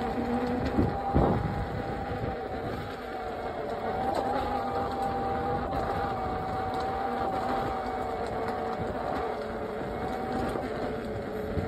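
A steady mechanical drone with a few held, slightly wavering tones over low rumbling noise, like a small motor running, with a brief thump about a second in.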